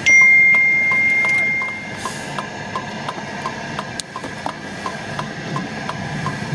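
Vehicle hazard-flasher relay clicking steadily, about three clicks a second. A loud, steady high beep sounds at the start and lasts about two seconds.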